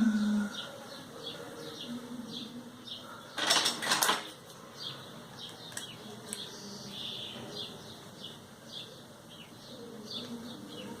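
Small birds chirping steadily in the background, short high chirps every half second or so. About three and a half seconds in there is a brief, louder clatter that lasts under a second.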